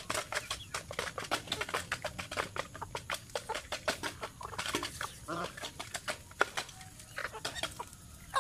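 Chickens and geese feeding from a metal bowl: rapid, irregular clicks of bills pecking and dabbling at the feed, with a few chicken clucks around the middle.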